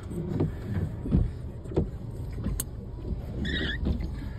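Car interior while driving on a wet road: steady low road and engine rumble with a few short knocks. Near the end the windshield wiper sweeps across the glass with a brief high squeal.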